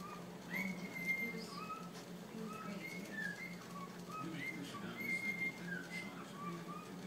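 A whistled tune: short notes, some sliding up and some held, over a steady low hum.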